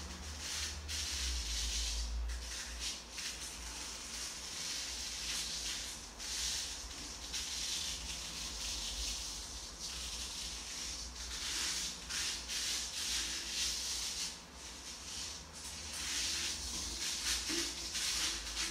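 Soft hissing noise that swells and fades in slow waves every few seconds, over a steady low rumble.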